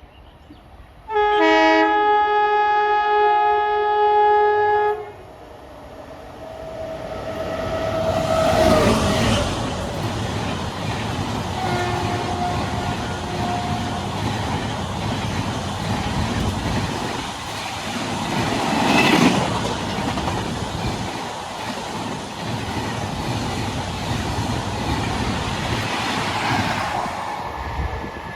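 Indian Railways train horn sounding a chord for about four seconds. A train then approaches and passes: a steady rumble and clatter of wheels on the rails rises, peaks twice and runs on for about twenty seconds before fading near the end.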